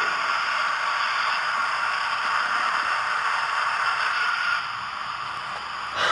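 Hornby TTS sound decoder in an OO gauge GWR Class 4900 Hall model locomotive playing its steam engine sound through the model's small speaker as the locomotive slows to a stop: a steady hiss that drops in level about four and a half seconds in.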